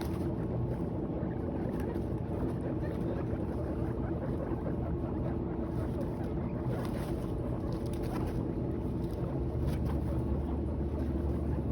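Guinea pigs chewing hay, faint crunching and rustling over a steady low rumble that grows a little stronger near the end.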